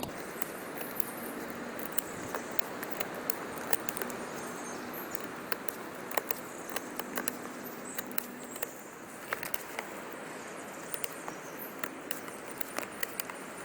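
Victorinox Soldier pocket knife's wavy-serrated blade hacking and cutting into a thick block of wood: irregular sharp clicks and cracks as the edge snags and tears the wood fibres instead of slicing cleanly.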